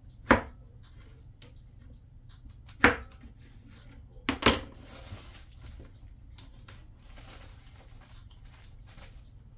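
Kitchen knife cutting potatoes on a wooden cutting board: a sharp knock of the blade on the board about a third of a second in, another around three seconds, and a quick pair near four and a half seconds, with faint cutting ticks between. A low steady hum underneath.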